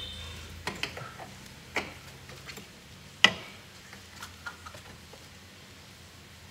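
Scattered sharp metallic clicks and taps from hand tools working on a washing machine's motor, with one loud click a little over three seconds in.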